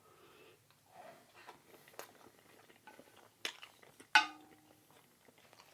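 Close-up eating sounds: soft mouth and chewing clicks, and a utensil clinking against a dish about four seconds in, ringing briefly. A smaller clink comes just before it.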